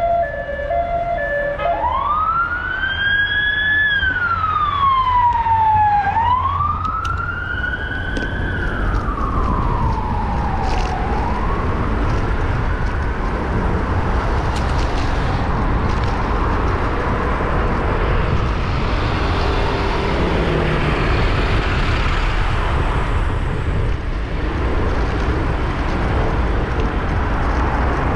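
Emergency vehicle siren: a two-tone hi-lo for the first couple of seconds, then switching to a slow rising and falling wail that fades out a little before halfway. Steady road and traffic noise runs underneath and carries on after the siren is gone.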